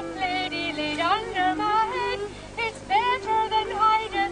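A group of women and children singing together, a slow tune with long held notes.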